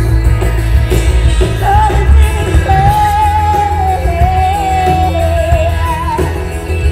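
Live rock band playing amplified music, a singer holding long notes over a heavy bass.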